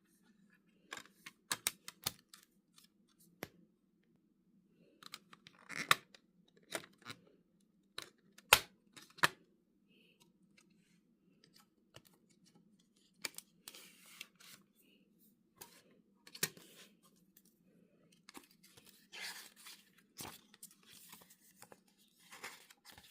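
Packaging being opened and handled by hand: irregular taps and clicks with short bursts of tearing and crinkling wrapping, over a faint steady low hum.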